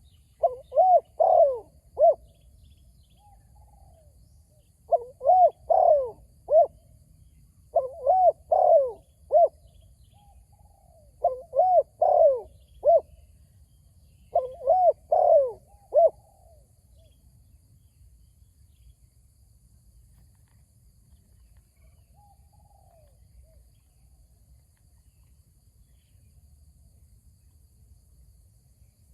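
Spotted dove cooing: five phrases of arched coos, one about every three seconds, then a single much fainter coo about two-thirds of the way through.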